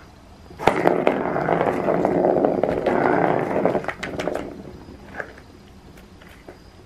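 Plastic ball rolling around the circular track of a Turbo Scratcher cat toy as a cat bats it: a rolling rumble that starts suddenly about half a second in and runs about four seconds, with clicks as the ball is struck, then dies away into a few light taps.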